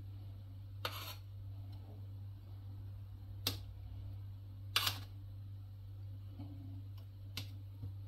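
Metal kitchen tongs clinking against an aluminium steamer basket and small glass bowls while steamed pumpkin pieces are served: three sharp clinks spread over several seconds and a fainter one near the end, over a steady low hum.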